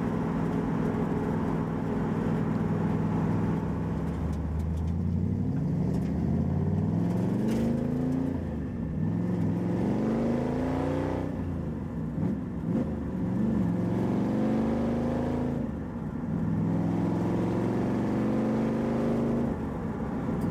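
New 331-cubic-inch Ford small-block V8 in a Mazda Miata, heard from inside the car as it pulls through the gears. The engine note climbs in pitch and drops back at each shift, several times over, with steadier running at the start and near the end.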